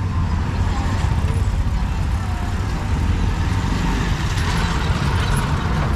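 Busy street ambience: a steady low rumble of passing traffic with indistinct voices mixed in.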